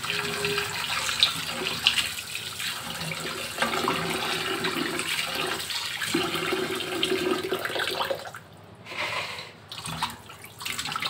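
Raw chicken pieces being washed by hand in a pot of water: water splashing and sloshing as the pieces are rubbed and turned. It dies down about eight seconds in to fainter, intermittent splashes.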